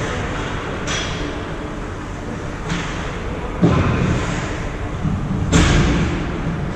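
Ice hockey play heard close up: a few sharp knocks of stick and puck, the two loudest in the second half, over steady rink noise.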